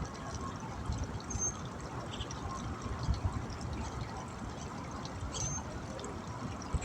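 Steady sound of running water, with low rumbling bumps like wind on the microphone and a couple of short, high chirps.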